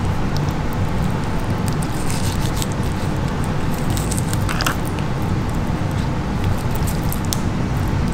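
Fillet knife slicing the soft, rubbery shell off a molting lobster tail on a wooden cutting board, with small scattered clicks of blade and shell, over a steady low rumble.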